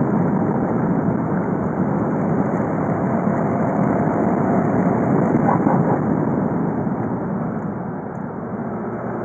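VW Golf V 2.0 TDI (BKD) four-cylinder turbodiesel running under way, its engine and road noise steady and easing off slightly near the end.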